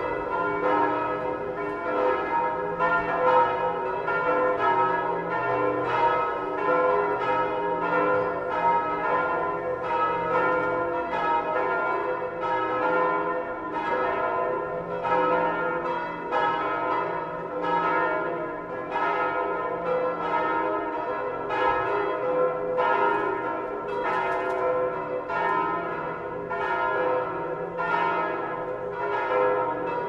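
Church bells of Notre-Dame-de-la-Croix in Paris pealing for Sunday mass: strokes come close together, roughly two a second, with several bell tones ringing on and overlapping into a continuous peal.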